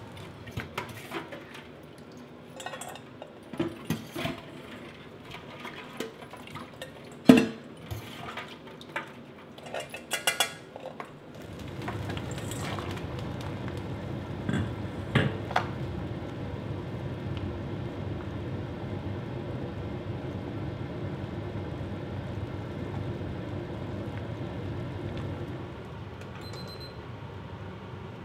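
A steel ladle clinks and scrapes against a stainless steel pot as crayfish are lowered into the water: a run of sharp clinks, the loudest about seven seconds in. It is followed by the steady bubbling of the pot at a rolling boil for about fourteen seconds, which then drops away.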